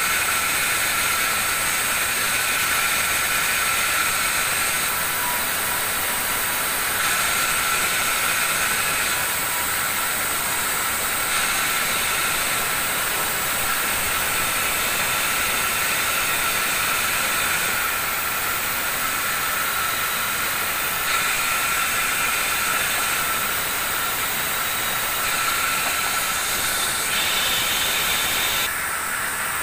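Band sawmill running and cutting mango wood: a loud, steady high hiss with a constant whine in it, its tone shifting a few times as boards are fed through the blade.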